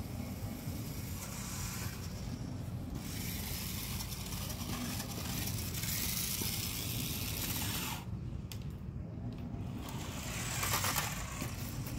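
Toy RC car's small electric motor and gears whirring with its plastic wheels on concrete, running in spurts that stop for a couple of seconds about two-thirds of the way in. A steady low rumble lies under it.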